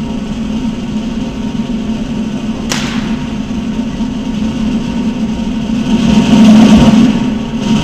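Steel Wheel of Death circus apparatus turning with a steady, loud rumble, as a blindfolded performer attempts a full turn on it. A single sharp crack comes near the middle, and the rumble swells briefly near the end.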